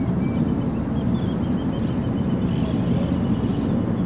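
A steady low, turbine-like rumble, which the recordist presents as the 'Hum' merged with a fixed turbine sound that has no Doppler shift. Small birds chirp in quick series over it from about a second in.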